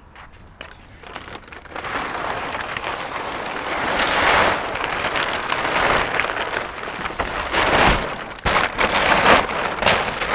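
Plastic packaging wrap being pulled off and crumpled by hand: dense crackling and rustling that builds after about two seconds, with a few louder bursts of crinkling in the second half.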